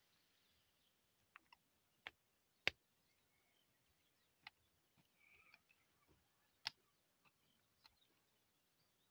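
Small hand hoe striking the soil: about eight sharp, irregular ticks, the loudest nearly three seconds in.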